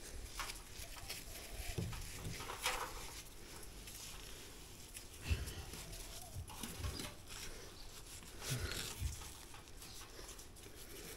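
A face brick buttered with wet mortar being pushed and worked into a gap in a brick wall: irregular soft scrapes, squelches and knocks of brick against brick and mortar under gloved hands.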